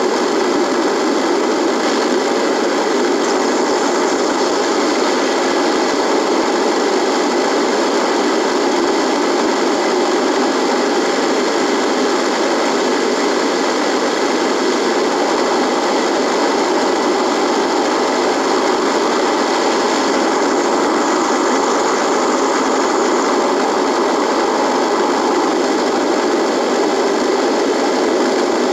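Radio buzzing: a steady, dense hiss of static with faint held tones running through it.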